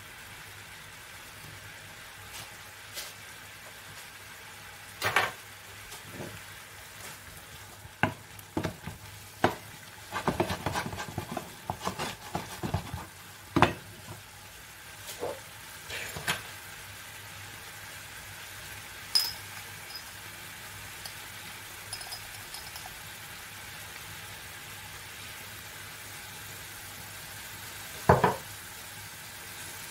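Onion, parsnip and mushrooms sizzling steadily in a frying pan, with a wooden spatula knocking and scraping against the pan as they are stirred. The knocks come in a busy run about ten to fourteen seconds in, with a few single sharp knocks besides, the loudest near the end.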